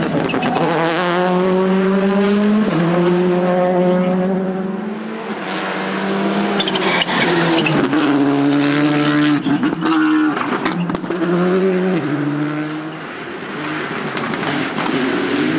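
Rally car engine running hard at high revs, its pitch holding and then jumping in steps as it changes gear, easing off twice. Sharp cracks and pops come around the middle.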